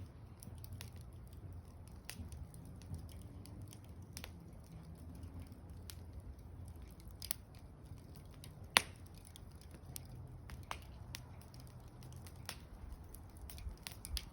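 Wood campfire crackling, with irregular sharp pops, the loudest about nine seconds in, over a low rumble.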